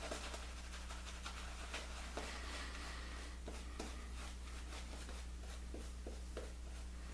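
Shaving brush working up lather: a soft, continuous scratchy swishing with many small wet clicks, over a steady low hum.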